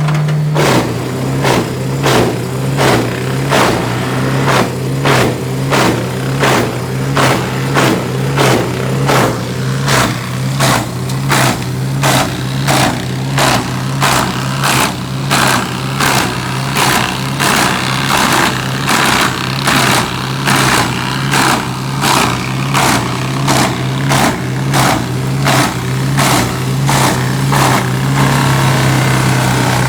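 Wood-processing machine with its engine running steadily under a regular knock, a little under two a second. Near the end the knocks give way to a steadier noise.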